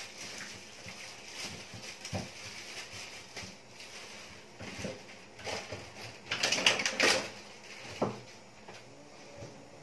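Pork and potatoes frying in a glass-lidded pan on an electric stove, with a faint steady sizzle. Scattered clicks and knocks sound over it, the loudest a short cluster of clatters a little past the middle.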